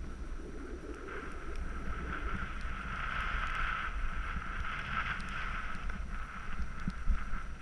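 Snowboard sliding over tracked, packed snow: a steady scraping hiss from the base and edges that swells in the middle. Wind rumbles on the microphone underneath.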